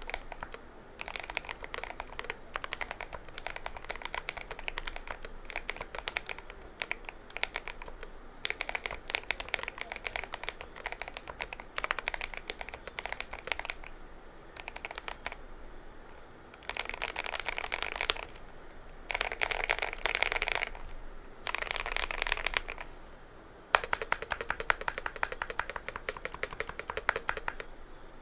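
Stock KTT Kang White v3 linear switches being typed on a GMMK Pro mechanical keyboard: bursts of rapid keystrokes broken by short pauses. The strokes turn louder and more evenly spaced for the last few seconds.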